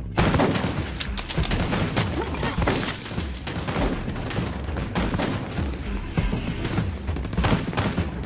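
Heavy volleys of rifle fire from several guns at once, the shots packed closely and overlapping, breaking out suddenly, with a film score underneath.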